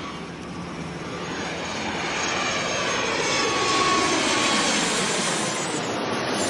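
Jet airliner's engines heard as it passes, a steady roar that grows louder to a peak about four seconds in, then eases off.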